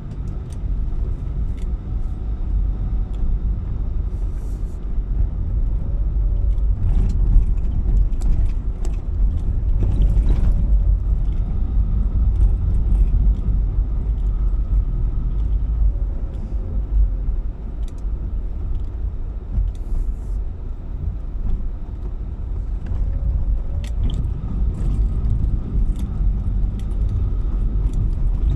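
Car driving along: a steady low rumble of engine and road noise, with scattered small clicks and rattles.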